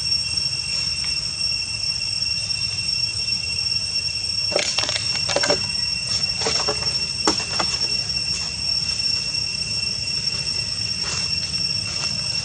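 Steady high-pitched insect drone from the forest, holding two even tones, over a low rumble; a cluster of short clicks and rustles comes about four and a half to seven and a half seconds in.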